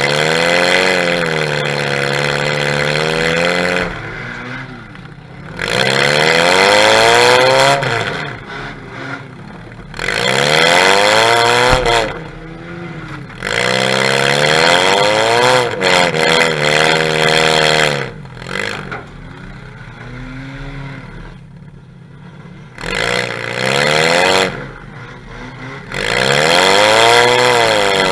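Demolition derby car's engine, heard close at its upright exhaust stack, revving hard in repeated surges of a few seconds, its pitch climbing and falling, then dropping back between surges.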